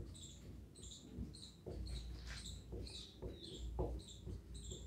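Faint strokes of a marker writing on a whiteboard, over a steady high chirp that repeats about three times a second in the background.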